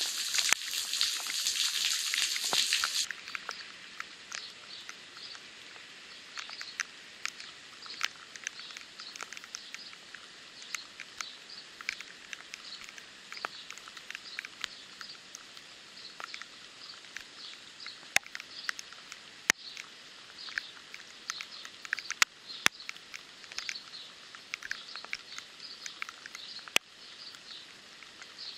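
Steady rain hissing on a puddle. About three seconds in it drops abruptly to lighter rain, with scattered sharp ticks of individual raindrops landing close by.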